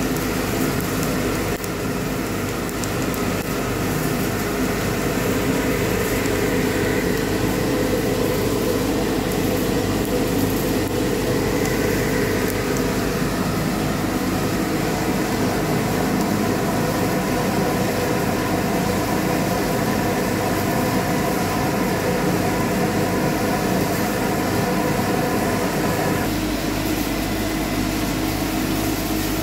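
Drum coffee roaster's cooling tray running steadily: the stirring arm sweeps freshly roasted beans round the perforated tray while the fan draws air through them, a continuous machine whir with the churning of the beans. This is the cooling stage just after the roast is dropped. The tone of the noise shifts slightly about 26 seconds in.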